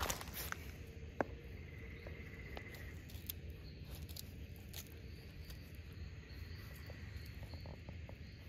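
Quiet night-time outdoor ambience: faint insects chirping, with scattered light ticks and rustles of puppies' paws padding over concrete and dry leaves. A couple of sharper clicks at the very start and about a second in.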